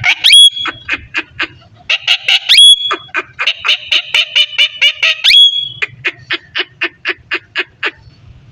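Indian ringneck parakeet calling: a quick series of sharp squawks at about four a second, broken by three rising whistles that each end in a held high note, with a burst of dense chatter in the middle.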